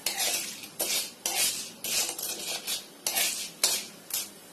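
Unpopped popcorn kernels in hot oil being stirred around a pan, a run of short scraping strokes about twice a second.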